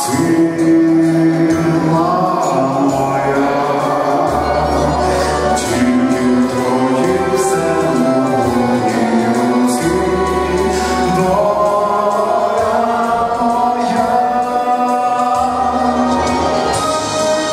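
A man singing a Christian song into a handheld microphone over musical accompaniment with long held bass notes.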